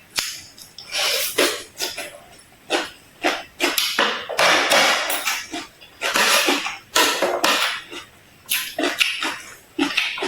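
Close-miked eating sounds: irregular crunchy chewing bites of food, some short and crisp, a few longer, with short pauses between them.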